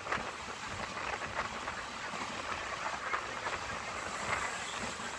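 Passenger train of the Mangalore–Nagercoil Parasuram Special running at speed, heard from inside the coach: a steady rush of wheel, rail and wind noise with irregular short rattles and knocks.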